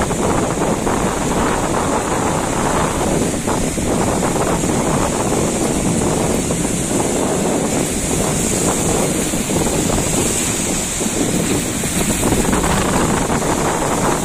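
Strong wind buffeting the microphone over a rough, wavy sea, a steady loud rush of noise.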